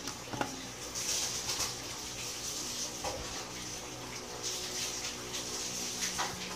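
A steady low hum under a rushing hiss that swells and fades twice. Three light knocks come about a second in, halfway through and near the end, as phone parts are handled on a silicone work mat.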